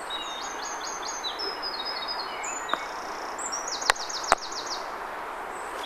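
Birds singing, with repeated high chirps and trills, over steady outdoor noise. Partway through comes a croquet mallet hitting a ball: two sharp knocks less than half a second apart, with a fainter tap about a second before.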